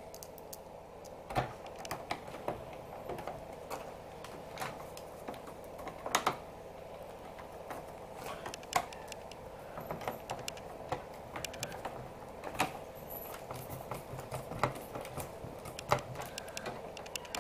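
Irregular clicks and taps of a screwdriver working a small screw into the plastic I/O panel of an all-in-one PC, with plastic and metal parts knocking together, over a steady faint hum.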